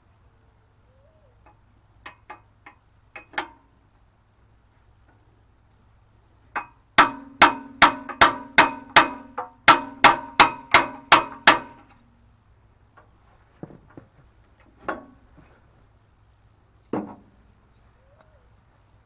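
Hammer striking metal: a few light taps, then a quick run of about a dozen ringing blows, then a few scattered knocks.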